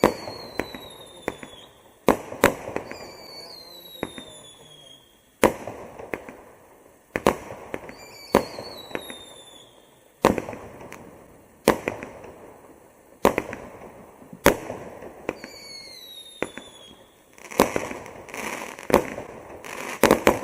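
Bright Star Mystic Bermuda multi-shot firework firing a string of sharp bangs one to three seconds apart, several of them trailed by a falling whistle. Near the end the shots come faster, with crackling.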